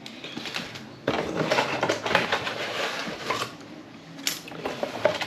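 Small plastic packets and kit parts being handled and sorted by hand: irregular crinkling and clattering from about a second in, easing off, with a couple of sharp clicks near the end.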